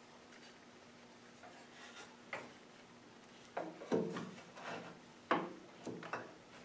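Hand-handling knocks and clicks as a taped acrylic block is pressed into place against a band saw fence: a single knock about two seconds in, then a cluster of sharper knocks and clicks from about three and a half seconds on. The saw is not running.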